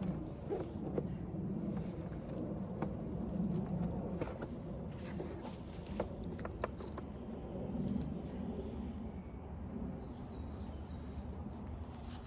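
Rustling and scraping with a few scattered light knocks as steel rebar J-hooks are handled and worked into soft soil.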